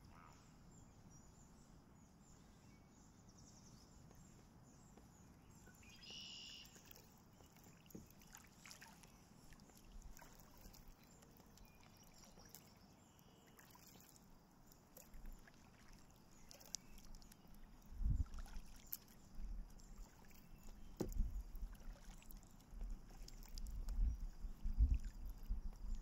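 Faint, quiet river ambience, then kayak paddle strokes from about two-thirds of the way in: the paddle dipping and pulling through the water and knocking against the hull in irregular low thumps.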